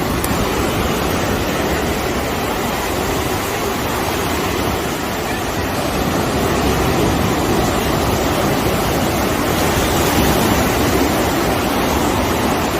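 Ocean surf washing on a beach, a steady rushing that swells slightly partway through, with wind buffeting the microphone.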